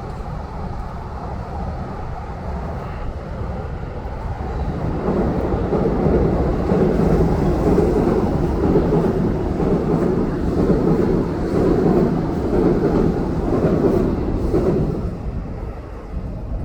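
A train passing close by, its low rumble swelling about four seconds in, staying loud with a slow uneven pulse, then fading near the end.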